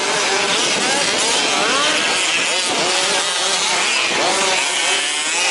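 Several 1/5-scale petrol RC trucks racing, their small two-stroke engines revving up and easing off, many rising and falling pitches overlapping.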